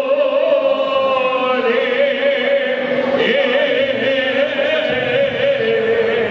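Orthodox liturgical chant: voices singing long held notes that move slowly in pitch, with a wavering vibrato.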